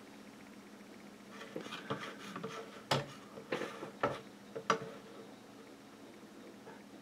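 Computer mouse clicking: a few soft rustles, then four sharp clicks spaced about half a second apart near the middle, over a faint steady hum.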